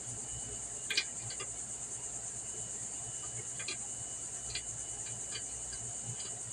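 Steady high-pitched chorus of crickets, with a few scattered light clicks from hand tools at work on the mower's steering shaft bolt.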